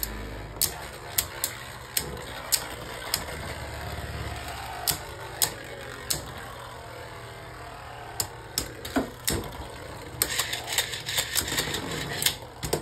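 Two Beyblade Burst spinning tops, Mirage Fafnir and Tact Luinor, battling in a plastic stadium: sharp, irregular clicks as they knock together over a steady whir. The hits come thick and fast in the last few seconds.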